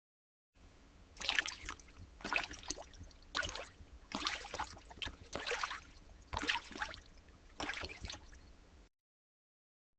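Slimy, wet squelching sound effect, like a squid moving around in a holding tank: seven squishy bursts about a second apart over a faint wet background. It starts and stops abruptly.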